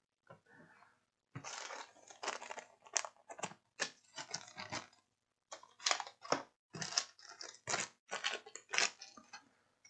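Small plastic bags of electronic parts crinkling and rustling as they are handled, in short irregular spells.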